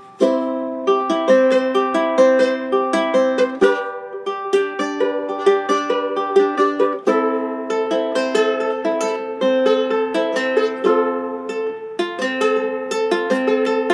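Oscar Schmidt OU-26T tenor ukulele fingerpicked: a steady run of single plucked notes with a few brief breaks.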